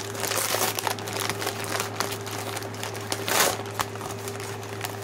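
Brown kraft-paper Amazon mailer being pulled open and handled: paper crinkling and rustling, louder about three and a half seconds in, over a steady low hum.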